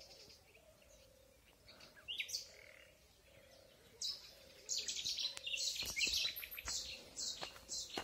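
A small songbird twittering: a couple of short rising chirps about two seconds in, then a run of quick high notes from about four seconds on.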